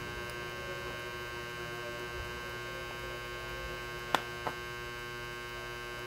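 Steady electrical mains hum, with two small sharp clicks close together about four seconds in, as steel tweezers handle the watch's stem and crown.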